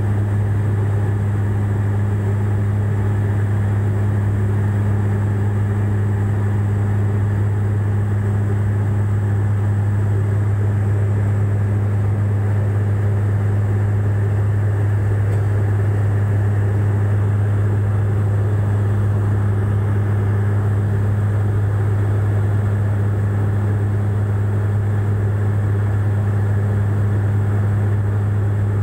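Turboprop airliner's propellers and engines heard from inside the cabin: a steady, loud, low drone with a strong low hum.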